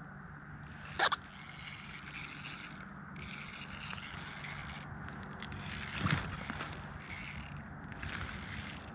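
A small spinning reel being cranked in stretches, its gears whirring, as a hooked fish is reeled in on a bent ice-fishing rod. Two sharp clicks stand out, one about a second in and a louder one about six seconds in.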